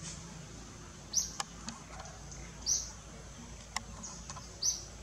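Three short high-pitched bird chirps, spaced a second and a half to two seconds apart, with two faint sharp clicks in between.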